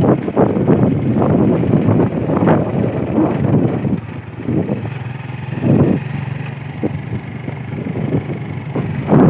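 Motorcycle riding along a dirt road, its engine running under rough wind buffeting on the microphone.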